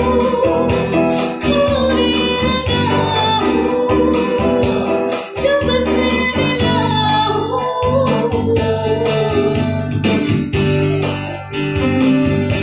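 A woman singing a melody into a microphone, amplified live, with a guitar accompanying her.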